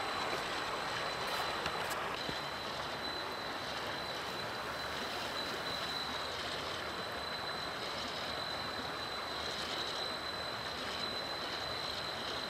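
A 1/10-scale electric RC crawler truck's motor and gears whining steadily as it crawls through shallow creek water, over an even rush of flowing water.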